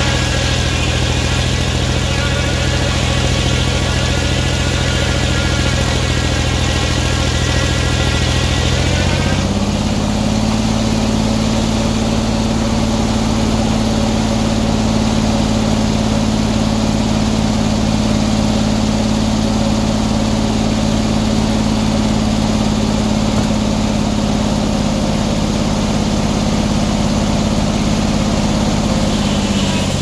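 Engine-driven circular sawmill running. About nine seconds in, the engine note rises and takes on a steady pulsing as the large blade goes into the log under load. It holds through the cut and drops back near the end as the cut finishes.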